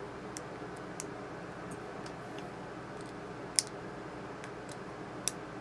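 Small plastic Lego pieces clicking and tapping as they are handled and pressed together, with two sharper clicks about three and a half and five seconds in, over steady background noise.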